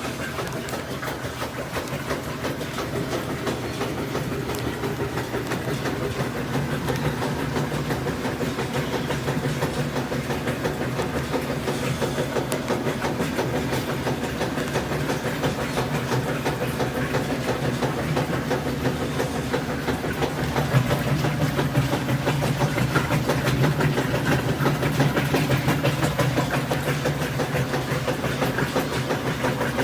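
Washing machine running its rinse cycle: a steady motor hum under a fast, even pulsing of the turning drum, a little louder about two-thirds of the way through.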